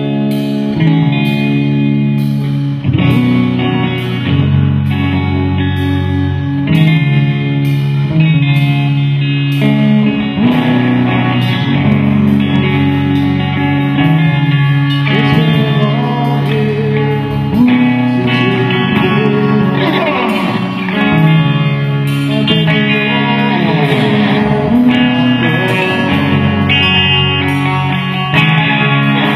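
Rock music led by guitar, with a steady beat of about two strikes a second.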